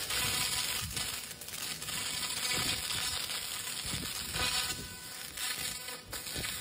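1000-watt fiber laser cleaner ablating paint off a metal toolbox panel: a steady crackling hiss as the beam strips the paint.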